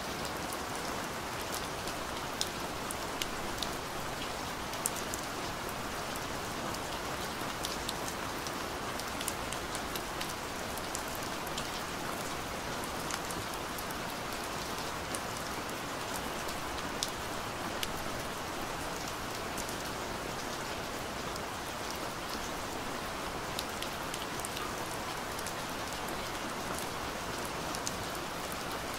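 Steady rain: an even, constant hiss with many small, sharp drop ticks scattered through it.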